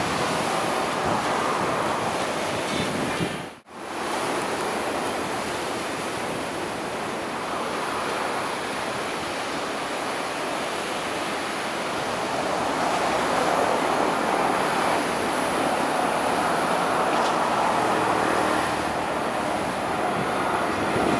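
Surf breaking and wind noise on the microphone, with an approaching S11 class diesel multiple unit faintly beneath. The sound cuts out for an instant about three and a half seconds in.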